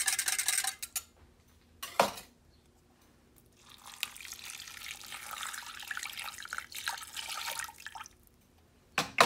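A spoon clinking briefly in a glass measuring cup of beef broth, a single knock about two seconds in, then the broth being poured from the glass cup over a roast in a slow cooker, a steady trickle of liquid for about four seconds.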